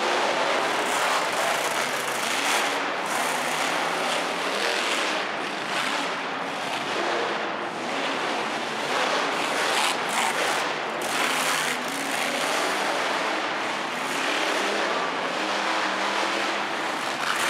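Monster truck engines running hard and revving during a race inside an arena: a loud, continuous engine noise that swells and eases.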